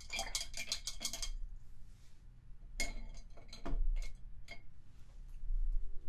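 Painting tools clinking and tapping against a hard container: a quick rattling run of clicks for about the first second and a half, then a few separate taps between about three and four and a half seconds in.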